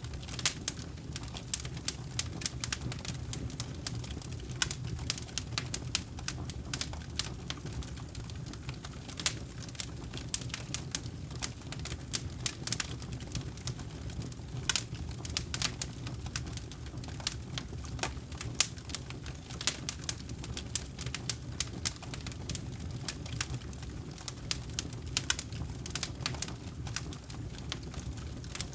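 Campfire burning: frequent irregular crackles and sharp pops from the wood over a steady low rumble of the flames.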